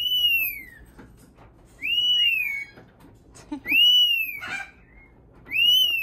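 A parrot whistling: the same arched whistle, rising then falling, repeated four times about every two seconds, with a short, rough squawk between two of them.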